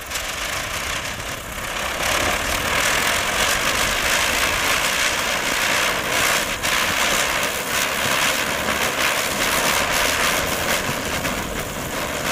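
Ground spinner firework (chakri) spinning on the ground, its burning composition giving a steady, loud fizzing hiss that grows louder about two seconds in.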